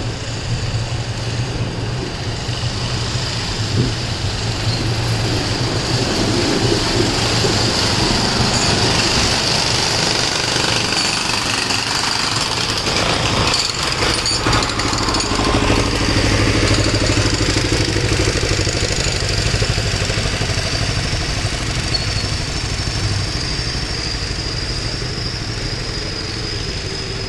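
A trailer-mounted engine set, such as a portable generator, running steadily with a constant low hum.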